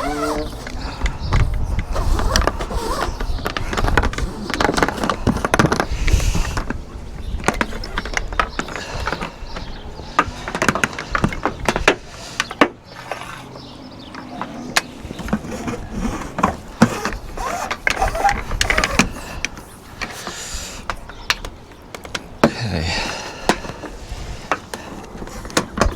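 Irregular clicks, knocks and rustling of hands-on work, handling a solar cable and its fittings.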